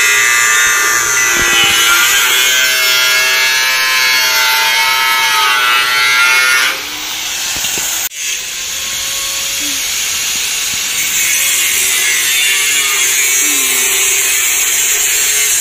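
Angle grinder with a cutting disc slicing through a rusty sheet-steel channel, the motor's pitch sagging and recovering as the disc bites. The sound drops a little about seven seconds in, breaks off for an instant about a second later, then carries on cutting.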